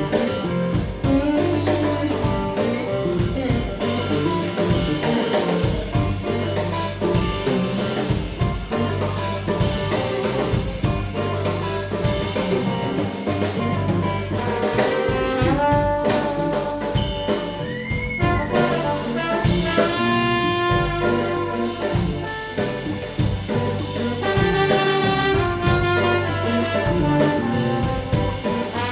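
Live blues band playing: drums, bass and electric guitar, with a trombone coming in about halfway through with held notes and a slide between pitches.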